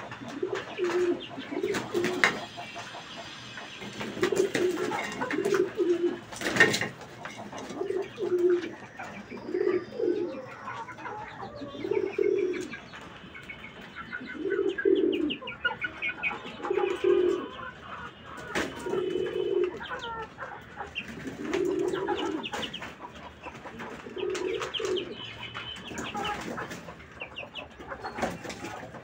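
Domestic pigeons cooing over and over, a low call repeating about every two seconds, with lighter bird chirps in between.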